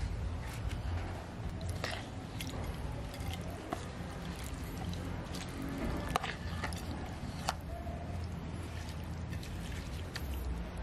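Wet squishing and slopping of spicy chicken-feet salad in its sauce as it is spooned onto a glass plate, with scattered clicks of the metal spoon against the dish. A steady low hum sits underneath.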